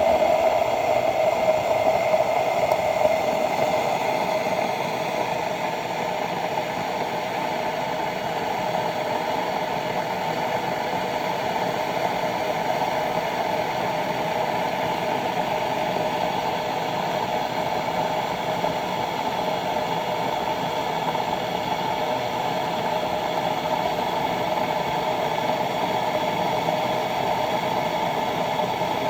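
Bodum gooseneck electric kettle heating water: a steady hiss with a faint rattle, slightly louder in the first few seconds.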